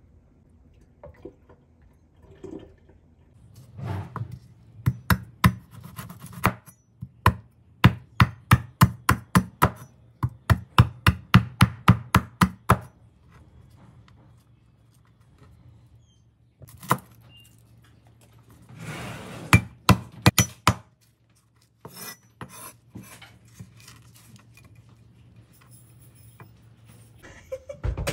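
A cleaver chopping on a wooden cutting board, in fast runs of sharp knocks at about three to four a second, with a short swishing noise near the middle.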